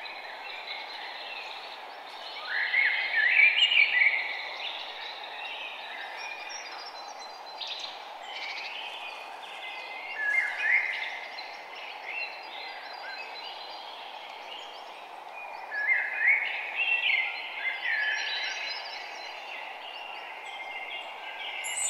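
Birds chirping in three short bouts over a steady background hiss, like a nature ambience track.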